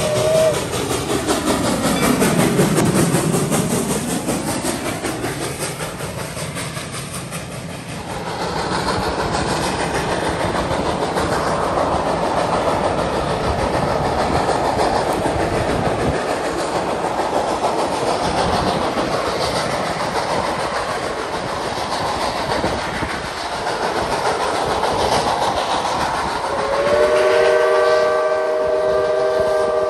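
Reading & Northern 425, a Baldwin 4-6-2 Pacific steam locomotive, finishes a multi-note whistle blast at the very start, then passes close by with a rush of sound that dips and swells again. After a cut, the train's coaches are heard rolling steadily along the track from on board. Near the end the steam whistle sounds again, a chord of several notes held on.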